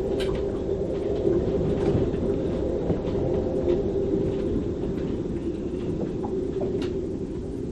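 Gale-force wind in a moored sailboat's rigging: a steady low howl over a rushing rumble, with a few sharp clicks scattered through, the strongest near the end.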